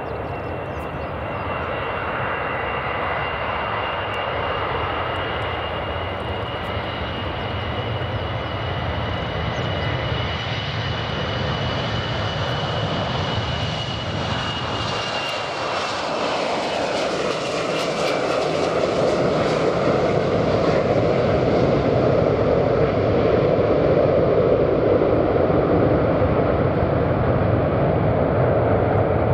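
Ilyushin Il-76 four-engine jet freighter at takeoff power, rolling down the runway, lifting off and climbing away. Its high engine whine falls in pitch about halfway through as the aircraft passes, and the jet noise then grows louder.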